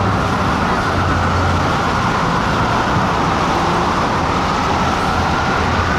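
Steady city road traffic noise with a low engine hum that fades after about the first two seconds.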